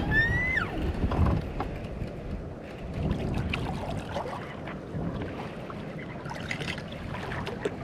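Handling knocks, clicks and low rumble aboard a small fishing boat as a hooked bass is brought in, with a short rising whistle-like tone in the first half second.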